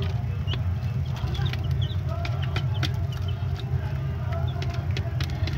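Domestic chicks peeping, with many short high cheeps and some wavering calls, over a steady low hum and scattered sharp clicks.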